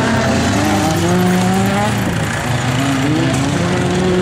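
Several autocross race cars' engines revving as the cars race on a dirt track, the pitch rising and falling as they accelerate and lift off.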